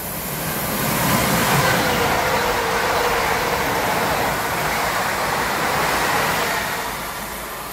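London Northwestern Railway Class 350 electric multiple unit passing through at speed: the rush of wheels on rail and air builds about a second in, holds steady with a faint whine, and fades near the end.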